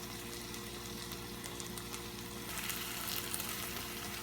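Black beans and garlic sizzling and crackling in a hot frying pan, a steady fizz with fine pops that grows a little louder about halfway through.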